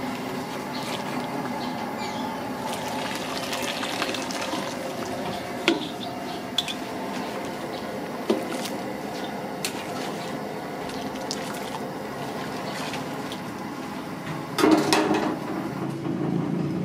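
Noodles cooking in a pot of bubbling water and being lifted out in a wire strainer, with water sloshing and running off. There are a few light metal clinks, and a louder clatter and splash near the end.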